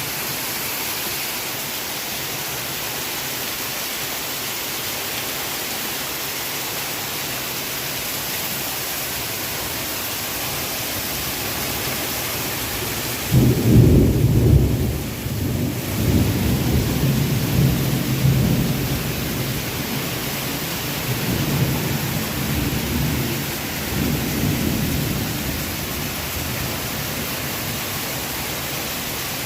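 Heavy rain falling in a steady hiss. About halfway through, a loud clap of thunder breaks into a deep rumble that rolls on in several swells for about ten seconds before dying away.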